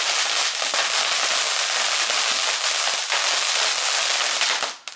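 Ground fountain firework spraying a tall column of sparks: a loud, steady hiss with a few crackles, cutting off suddenly shortly before the end.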